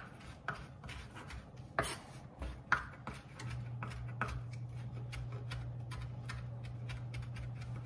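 Chef's knife chopping fresh parsley on a wooden cutting board: a quick, uneven run of blade taps on the wood. A low steady hum comes in about halfway through.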